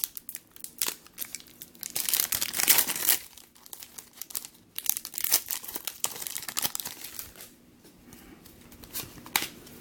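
A foil trading-card pack being torn open and its wrapper crinkled, in two main bursts of crinkling with a few sharp clicks between.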